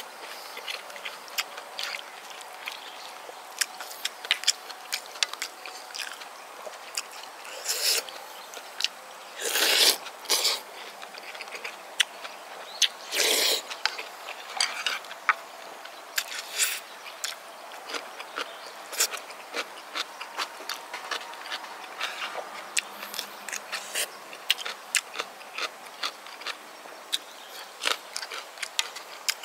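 Close-miked chewing of gukbap, with many small wet mouth clicks throughout and a few louder, longer slurps about 8, 10 and 13 seconds in.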